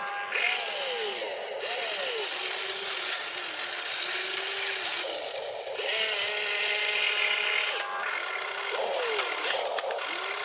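Small electric motors of an RC construction model whirring, their pitch rising and falling again and again in short sweeps over a steady hiss.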